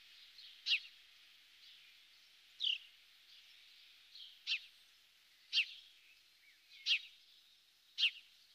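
A bird calling: repeated short, sharp, high notes, each sliding quickly down in pitch, about one a second, over faint outdoor background noise.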